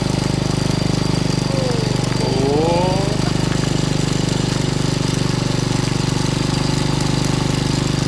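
Small vehicle engine running steadily with a fast pulsing beat, labouring at walking pace up a steep hill under the load of four riders.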